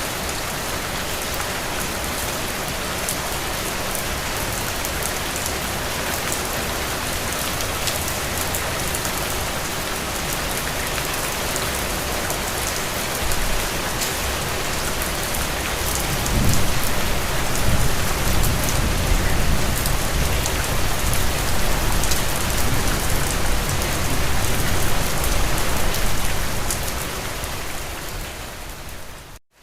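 Steady rain falling, an even hiss with scattered drop ticks. A low rumble swells in about halfway through and carries on for several seconds. The sound drops out abruptly just before the end.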